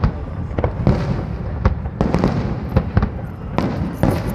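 Fireworks display: a rapid, irregular run of bangs, several a second, over a continuous low rumble of bursting shells.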